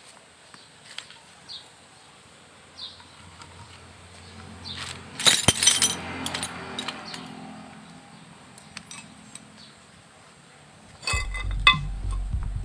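Small metal parts and tools clinking and clattering on a workbench while a wiper motor is being opened, loudest in a burst about five to six seconds in. Background music with a steady beat comes in near the end.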